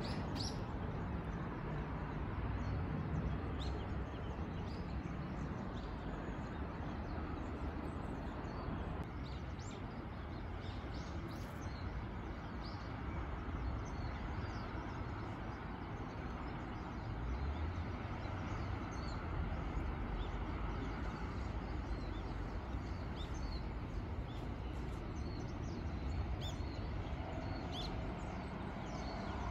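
Outdoor park ambience: a steady low background rumble with scattered short bird chirps throughout.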